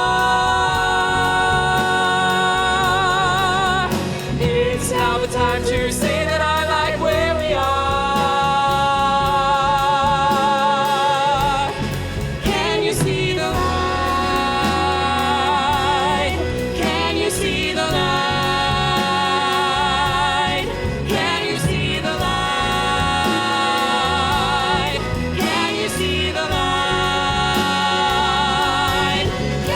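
Live band with strings accompanying several singers who hold long sung notes with vibrato, in layered harmony.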